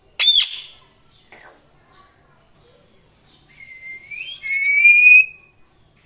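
Indian ringneck parrot calling: a short, sharp, loud call just after the start and a faint one a second later. Near the end comes a rising note that turns into a clear whistle held steady for about a second.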